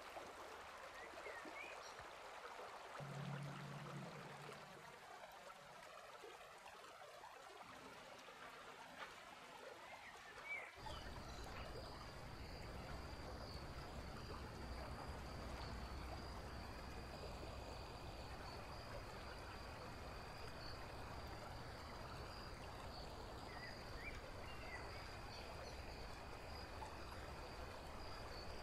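Faint outdoor ambience: an even rushing hiss like running water, with a few short chirps. About eleven seconds in it changes abruptly to a low rumble under a steady, thin high-pitched whine.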